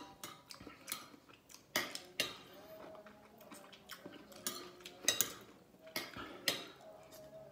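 Metal spoon clinking and scraping against a ceramic plate while scooping rice and soup, with several sharper clinks and chewing in between.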